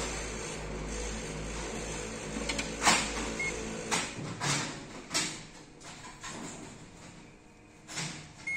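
Ricoh MP C2051/C2551 colour copier warming up after being switched on. A steady running hum cuts off about halfway through, followed by a string of mechanical clunks and clicks as the machine initialises. A short beep sounds just before the hum stops.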